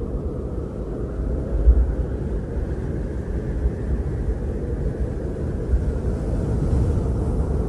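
Blizzard wind buffeting the microphone: a steady low rumble with a couple of stronger gusts.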